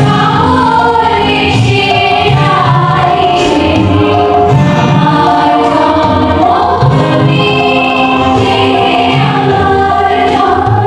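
A choir of mostly women's voices singing a song together into microphones, with held notes and a steady low backing underneath.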